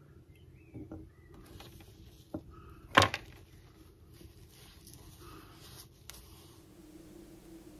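Quiet handling at a workbench: a microfibre cloth rubbing as hands are wiped, with faint clicks and one sharp knock about three seconds in and a smaller one near six seconds.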